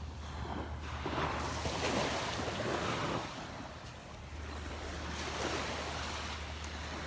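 Small waves breaking and washing up the sand at the shoreline, two swells of surf a few seconds apart, over a steady low rumble of wind on the microphone.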